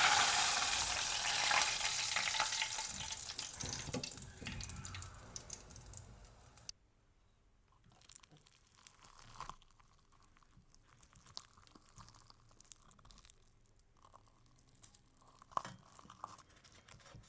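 Hot oil sizzling and crackling around a pigeon frying in a pot, loud at first and dying down steadily, then cutting off about six and a half seconds in. After that, only faint scattered clicks and small knocks.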